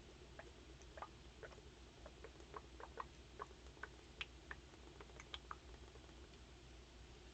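Near silence with a scattering of faint, irregular small clicks and ticks over a low steady hum.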